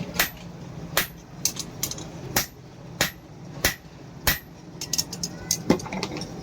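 Hammer blows on steel, one sharp ringing strike roughly every two-thirds of a second, then a quick run of lighter taps about five seconds in; a steady low hum runs underneath.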